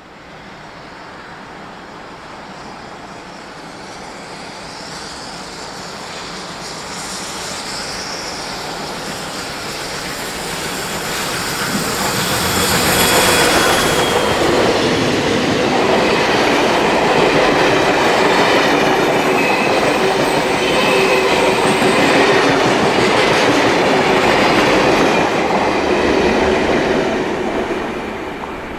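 NSW 59 class steam locomotive 5917 hauling a passenger train through a station, growing louder for about twelve seconds as it approaches, then passing close. The wheels clatter over the rail joints with a steady squeal as the carriages roll past, and the sound fades near the end.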